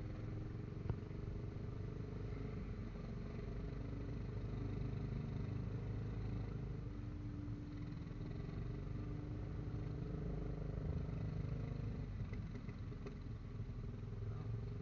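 Kymco Xciting 400i maxi-scooter's single-cylinder engine running steadily at low road speed, heard from the rider's seat with road and wind noise. A single sharp click about a second in.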